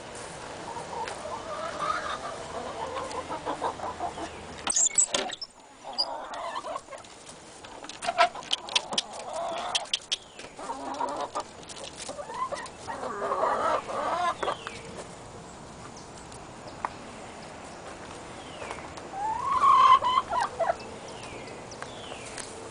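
Domestic chickens clucking on and off, with a louder call rising in pitch near the end. A run of sharp clicks and knocks partway through.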